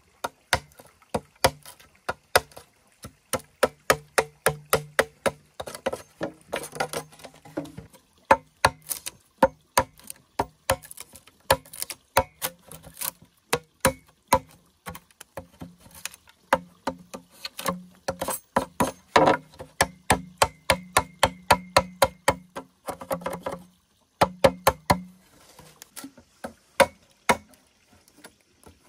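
A hand tool striking dried bamboo: a steady run of sharp knocks, about three a second, with a few short pauses.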